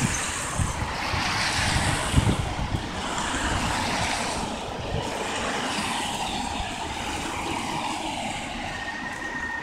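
Steady outdoor city noise of road traffic going by, with a fluctuating low rumble.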